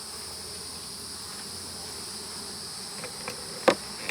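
Steady, high-pitched insect chorus drones on without a break, with a few light ticks late on and one sharp click a little before the end.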